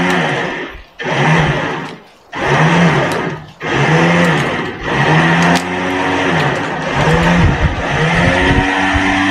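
Hand saw cutting through a log in back-and-forth strokes, each stroke carrying a rising-then-falling tone over the rasp of the teeth. The first few strokes come with short pauses, then the sawing runs on steadily at about one and a half strokes a second.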